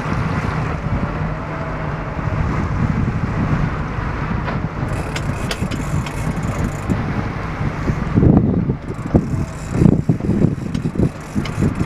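Fishing boat's engine running steadily, with wind buffeting the microphone in strong gusts late on.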